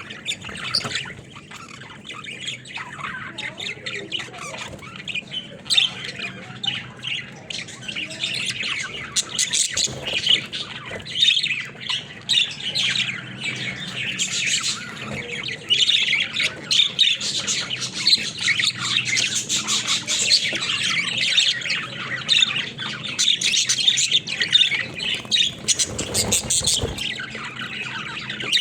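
Pet budgerigars chattering in their cage: a busy, continuous stream of short chirps, warbles and squawks.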